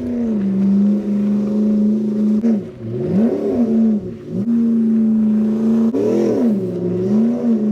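Dodge Ram 2500's Hemi V8 engine running under throttle at a steady pitch, which twice dips and swings back up as the revs fall and rise.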